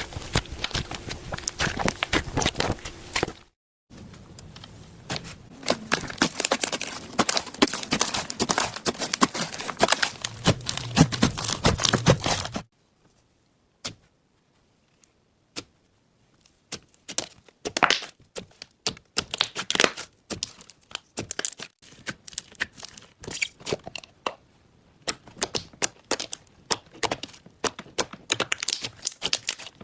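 Slime being pressed and stretched by hand, giving dense runs of sharp clicking and popping. After a short quiet stretch the clicks come singly and further apart, then pick up again.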